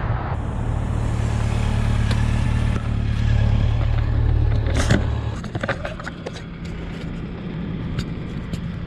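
A motorcycle engine idling close by with a steady low hum; about five seconds in the hum drops back and a run of knocks and scrapes follows as the dropped action camera is picked up and handled.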